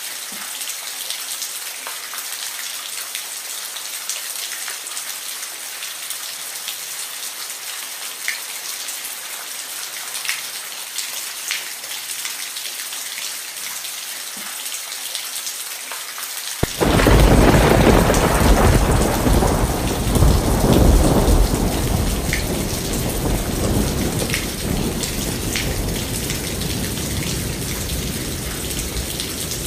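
Steady rain falling, with scattered drops ticking on a surface. About two thirds of the way through, a sudden loud clap of thunder breaks in and rumbles on, slowly dying away under the rain.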